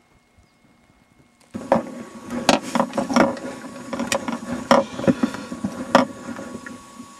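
Helmet-mounted camera's own recording: a steady mechanical hum with sharp, irregular knocks and clicks as the wearer moves over rocky ground. It starts abruptly about a second and a half in.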